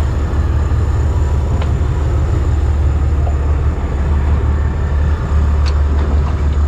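Boat engine running steadily, a constant low rumble, with a couple of faint clicks on deck.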